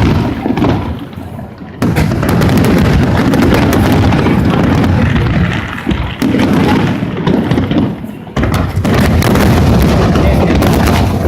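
Fireworks finale: a dense, continuous barrage of overlapping bursts and booms. It starts abruptly about two seconds in, eases briefly twice, and comes back with a sudden loud volley after about eight seconds.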